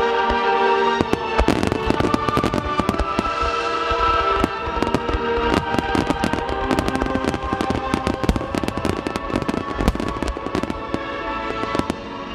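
Rapid barrage of aerial firework shells bursting, dozens of sharp bangs close together, densest from about four seconds in, over music.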